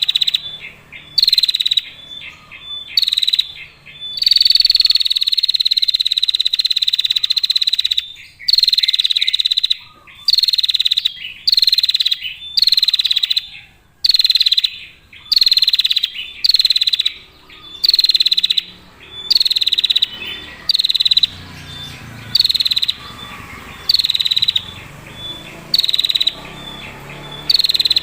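Female prinia giving its rapid trilling call over and over, high-pitched bursts about one every second and a half, with one longer trill running for several seconds near the start.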